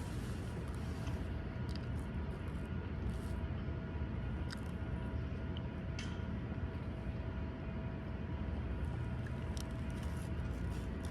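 Steady low background rumble with a faint hum, and a few faint clicks and smacks of someone chewing a burrito.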